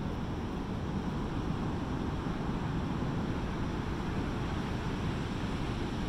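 Pacific Ocean surf breaking offshore, heard as a steady, even rush of noise with no single wave standing out, mixed with wind buffeting the microphone.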